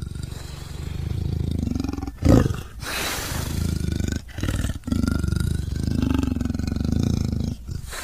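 Leopard growling and roaring in a string of long, low calls broken by brief pauses, with a short, louder burst about two seconds in.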